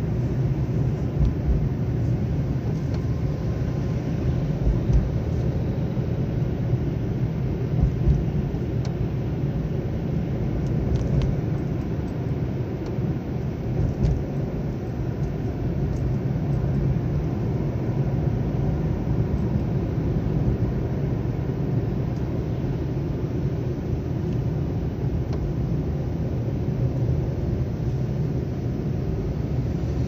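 Car cabin noise while driving: a steady low rumble of engine and tyres on the road, with a few brief low thumps.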